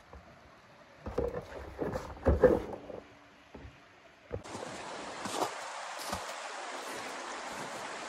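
Dry dead branches cracking and thudding on hard-packed snow, a few heavy hits in the first three seconds. A bit past halfway a steady rushing hiss starts suddenly, with footsteps crunching in snow over it.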